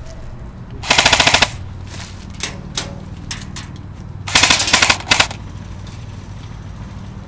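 Airsoft M4-style rifle firing two short full-auto bursts of rapid shots, the first about a second in and a longer one about four and a half seconds in. A few single sharp clicks fall between the bursts.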